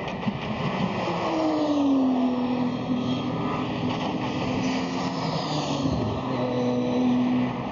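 GT race car engines running hard on circuit, several cars heard at once. One engine note falls in pitch about a second in, while others hold steady.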